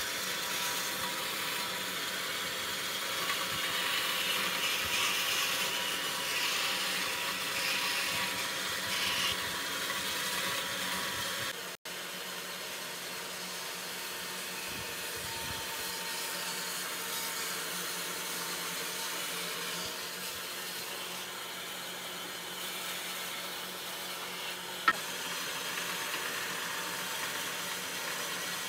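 Band saw running, its blade cutting through a small wooden block: a steady motor hum under a hiss of sawing. The sawing is louder over the first ten seconds or so. There is a sharp click near the end.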